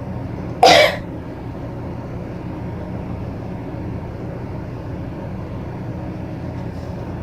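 A steady low hum, with one short clatter less than a second in, like a hard object being set down.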